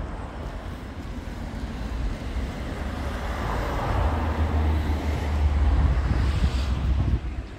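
Outdoor ambience: wind buffeting a phone's microphone with a fluctuating low rumble, over a hiss of road traffic. It grows louder through the middle.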